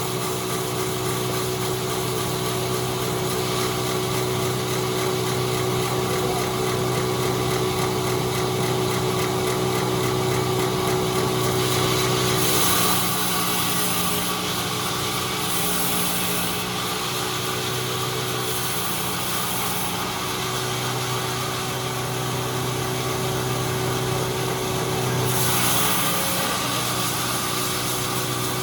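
A sawmill's engine runs steadily. About halfway through there are three short bursts of high hiss in quick succession, and one more near the end.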